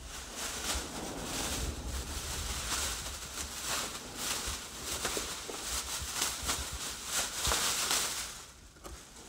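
Clear plastic bag crinkling and rustling as it is handled and a leather armour piece is pulled out of it. The rustling dies down shortly before the end.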